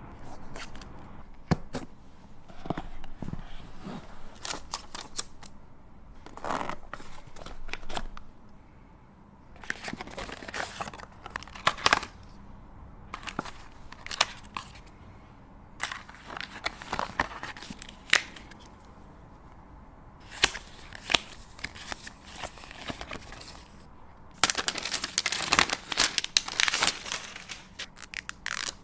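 Smartphone retail box and its packaging being handled and opened: crinkling and tearing of wrap or paper, with many sharp taps and clicks. It is busiest near the end.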